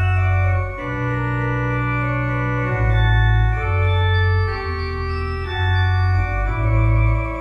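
Organ playing a slow prelude of held chords over deep bass pedal notes, the chord changing about once a second.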